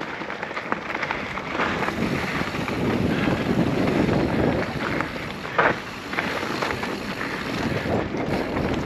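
Mountain bike rolling down a dirt trail: tyre noise and rattle over rough ground, with wind rushing on the microphone. A sharp knock about five and a half seconds in.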